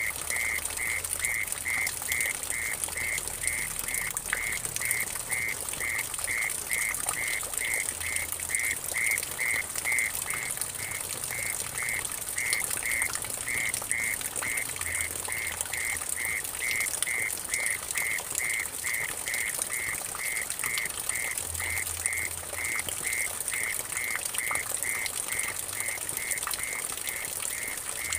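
Mole cricket (orong-orong) calling in short, evenly repeated high chirps, about two a second, over water dripping and splashing into a puddle.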